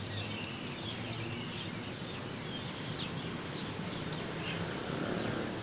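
Steady outdoor background noise with scattered short, high animal chirps.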